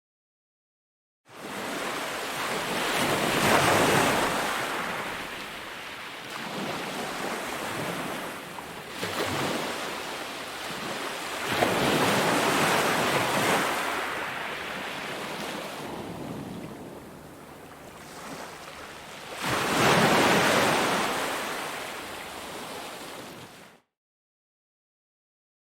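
Ocean surf on a beach: waves break and wash up the shore in three surges several seconds apart, each swelling and then fading, with some wind. The sound drops to dead silence for about a second at the start and again for nearly two seconds near the end.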